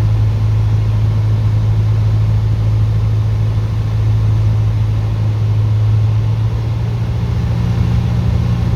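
Light aircraft's piston engine running steadily at a constant loud hum, shifting slightly in tone about seven seconds in.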